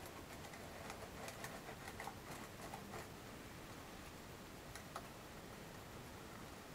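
Faint, scattered small clicks and light rubbing as a round wooden turntable is turned by hand. The clicks are busiest in the first few seconds, with one sharper click near the five-second mark.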